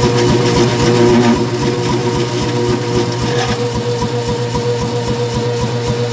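Say-Mak power hammer's electric motor running, turning the flywheel through a cogged timing belt: a steady mechanical hum with a rapid low pulsing underneath.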